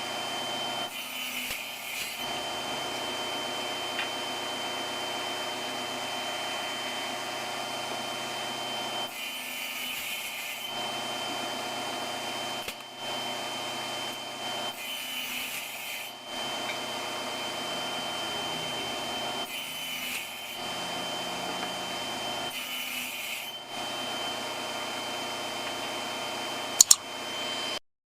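Table saw running and cutting wood for tenons, with a steady high whine and the cutting noise changing every few seconds as the stock is pushed through in passes. Two sharp clicks near the end.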